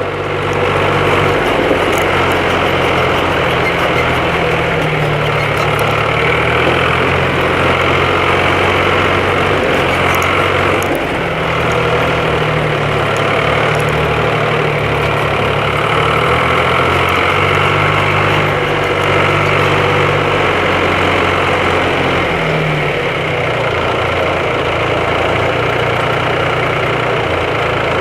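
Engine of a John Deere 1130 LS tractor heard from its seat while driving, a loud steady running hum that rises and falls slightly in pitch as the engine speed changes, with light rattling clicks in the first ten seconds or so.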